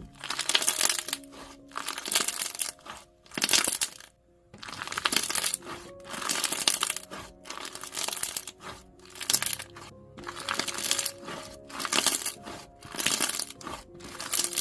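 Floam slime packed with foam beads being squeezed and pressed by hand, giving crunchy crackling bursts about once a second. Soft background music plays under it.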